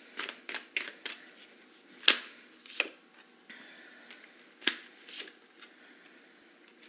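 Tarot cards being handled on a table: a string of irregular sharp card clicks and slaps, the loudest about two seconds in.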